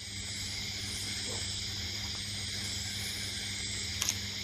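Shallots, garlic and curry leaves sizzling steadily as they fry in hot sesame oil in a kadai, with a low hum underneath and a short click about four seconds in.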